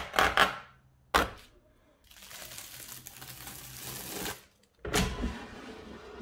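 Air fryer unpacking: a few sharp knocks at the start, then about two seconds of steady crinkling as protective plastic film is peeled off the unit. Near the end comes a clunk and rustling as the basket is pulled out with bubble wrap packed inside.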